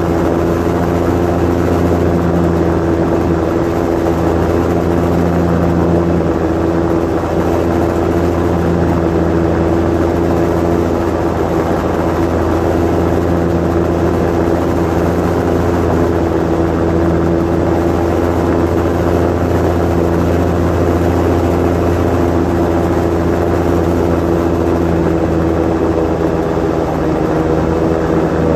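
Osprey 2 amphibious seaplane's engine and propeller droning steadily in flight, heard from inside the cockpit.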